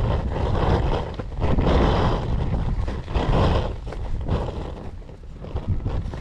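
Wind buffeting the microphone outdoors, a rumbling hiss that swells and fades in gusts.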